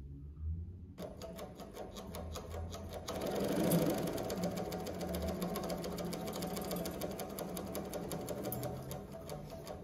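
JUKI MS-1190 double-needle chain stitch industrial sewing machine stitching tape onto a T-shirt: the needles start clattering in a fast, even rhythm about a second in and run louder from about three seconds in.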